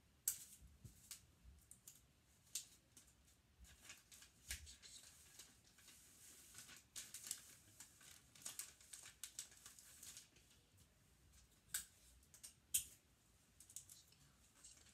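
Faint crinkling and rustling of wrapping paper being folded and creased around a gift, with scattered sharp crackles. The loudest crackles come about a quarter second in and near 12 and 13 seconds.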